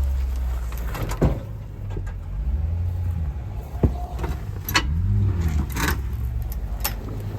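Off-road vehicle engine running on a rock trail, revving up and down around the middle, with several sharp knocks and clunks.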